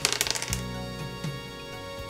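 A game die rolled onto a tabletop, clattering in a quick run of clicks that dies out about half a second in, over background music.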